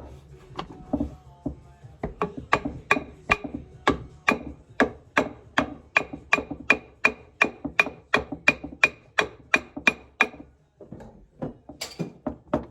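Hammer blows on the metal fitting of a swivel timber carrier, knocking it off the wooden handle: a steady run of about two to three ringing strikes a second, after a few scattered knocks, ending with a short scrape.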